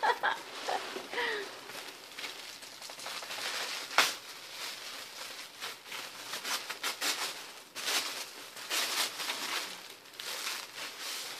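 White paper wrapping crinkling and rustling as it is unwrapped by hand from a pack of pencils, with a sharp tap about four seconds in.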